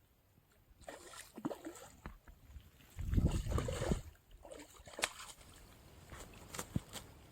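Water sloshing and splashing in irregular bursts, the loudest a few seconds in, with a few sharp clicks in the second half.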